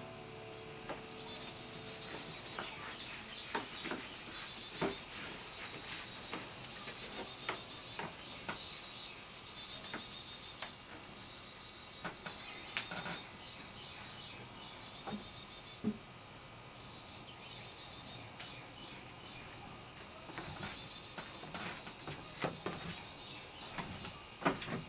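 Outdoor summer ambience: insects trill in short repeated bursts over a high steady whine, and a bird gives a short falling chirp every second or two. The last acoustic-guitar chord dies away in the first couple of seconds, and scattered knocks come as the guitar is handled and set down against a chair.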